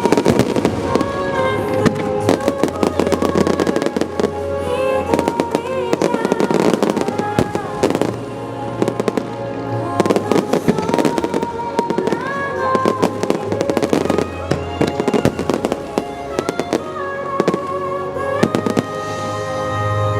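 Fireworks going off in rapid succession, sharp bangs and crackles packed close together, over loud music with sustained tones.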